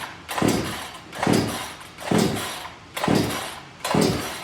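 Recoil starter cord of a new 63cc two-stroke chainsaw being yanked five times in quick succession, a bit under one pull a second, each pull a short rasping whirr. The engine does not catch: it has never had fuel in it and is being primed by cranking.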